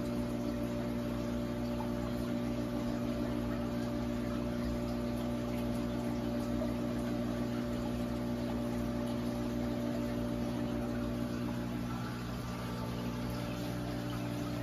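Steady hum of a saltwater aquarium's pump, with water circulating through the tank.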